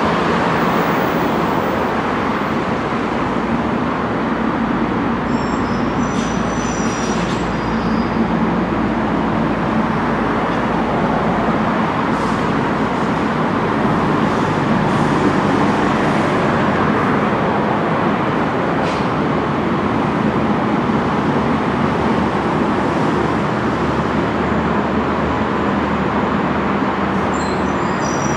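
Steady roar of traffic, with faint high squeaks about six seconds in and again at the very end.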